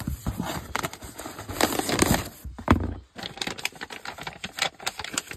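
Cardboard shipping box being opened by hand: packing tape ripping and cardboard flaps scraping and crackling, with the loudest tearing about two seconds in.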